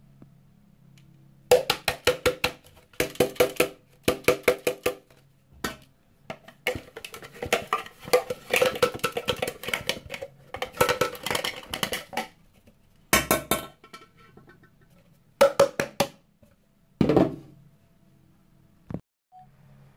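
Hard plastic dust container of a Bosch BKS4043 handheld vacuum rapped against a ceramic sink in quick bursts of sharp knocks, to shake the collected dirt loose. The knocks come in several short clusters and one longer run in the middle.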